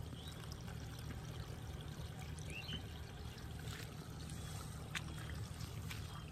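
Steady low outdoor rumble, with a few faint clicks and rustles as hands work in wet grass and mud at the water's edge. One short rising chirp about two and a half seconds in.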